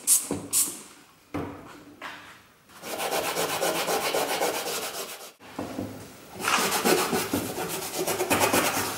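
Two quick squirts from a trigger spray bottle, then a grey abrasive fleece pad scrubbed rapidly back and forth over a Vespa's painted steel body in two long spells, working surface rust off the original paint.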